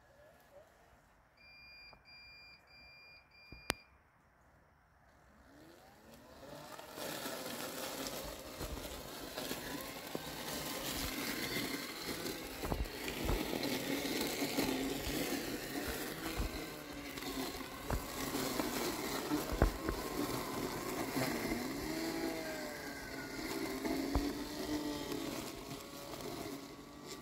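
Landxcape LX790 robotic lawn mower beeping four times, with a click just after. About six seconds in, its cutting motor starts and keeps running as it mows through tall wet weeds, its pitch wavering as the load changes.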